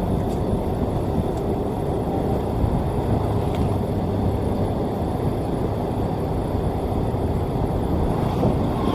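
Sakai asphalt paver's diesel engine running steadily as the machine travels, a continuous low rumble.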